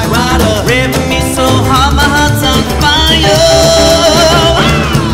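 Recorded band music playing loud: a lead melody of sliding, wavering notes, one held for over a second near the end, over steady bass and drums.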